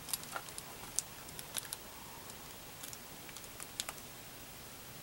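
Faint, irregular light clicks and crinkles of thin plastic laminating film being handled and trimmed with a snap-off utility knife on a foam wing.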